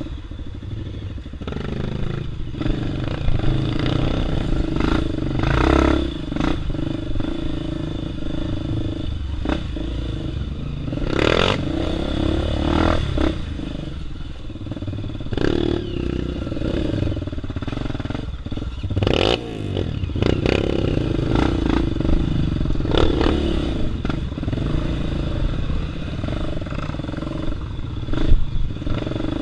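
Single-cylinder four-stroke dirt bike engine running at low trail speed, its note rising and falling with the throttle, while the bike clatters and knocks repeatedly over rocks and roots.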